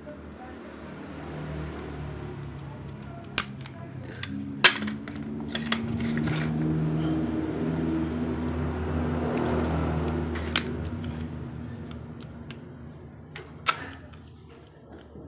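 Sharp metallic clicks and clinks from the hand tools and clutch parts of a Suzuki Crystal's clutch as it is taken apart, five in all, the loudest a little under five seconds in. Under them, a low droning hum swells through the middle and fades out near the end.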